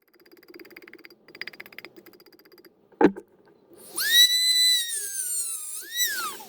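Diamond-coated cutter grinding into a glazed ceramic pot: a faint rasping, then a sharp knock about three seconds in, then a loud high squeal that dips in pitch, rises again and falls away over about two and a half seconds.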